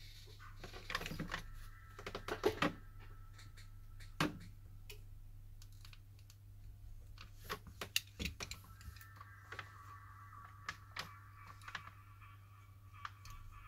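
Irregular sharp clicks, taps and scrapes of an opening tool working at the glued edge of a Samsung Galaxy A3 2016 screen to pry it loose, over a low steady hum.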